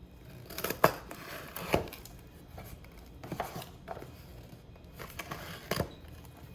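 Cardboard shipping box being opened and its packaging handled: rustling and crinkling broken by several sharp taps and knocks, the loudest about a second in and just under two seconds in.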